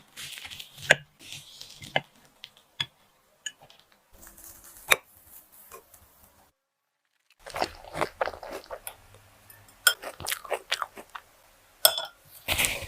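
Cake-making handling sounds: sharp clicks and taps with stretches of crisp crunching and scraping, broken by a moment of total silence about six and a half seconds in.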